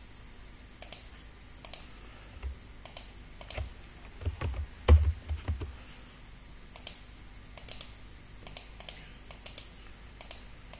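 Irregular sharp clicks of a computer mouse and keyboard, with a short cluster of dull knocks around the middle, the loudest about five seconds in.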